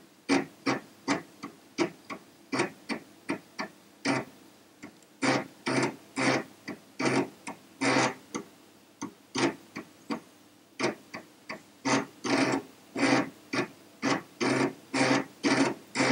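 Amiga 1000's built-in 3.5-inch floppy drive reading the Workbench boot disk. Its head steps and seeks, giving irregular short clicks and buzzes, some spaced apart and some in quick runs.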